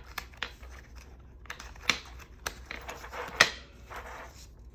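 Planner pages being handled and fitted onto disc rings: paper rustling with four or so sharp clicks, the loudest a little over three seconds in.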